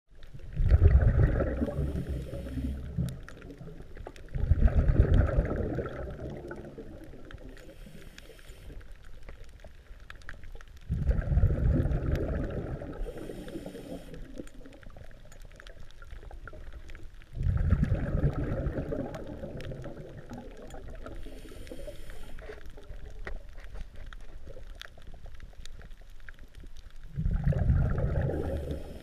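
Scuba diver breathing through a regulator, heard underwater: five loud rushes of exhaled bubbles, one every five or six seconds, each lasting two to three seconds, with a brief higher hiss of inhalation between some of them.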